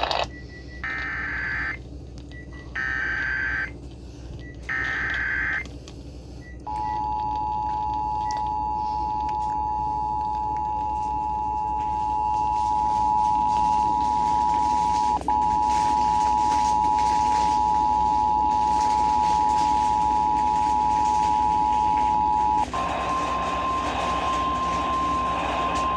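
Emergency Alert System tones over FM radio: three short, harsh, buzzy bursts of the digital alert header, then the two-tone attention signal held steady for about sixteen seconds. After that comes a single steady, slightly higher tone over static hiss, the weather radio's warning alarm tone being relayed.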